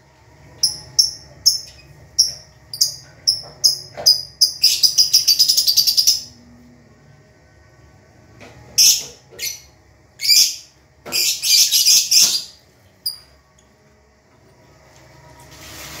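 Lovebirds calling: a string of sharp, high chirps about two or three a second, running into a fast chattering trill, then a few more bursts of chatter partway through before they go quiet near the end.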